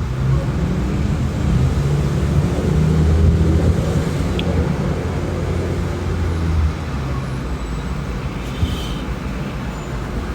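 A motor vehicle's engine hum with traffic noise, building to its loudest about three seconds in and dropping away about two-thirds of the way through.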